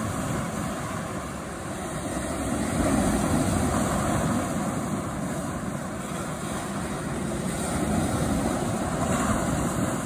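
Big lake waves breaking and rushing on a cobble beach: a steady, low surf rumble that swells and eases a couple of times.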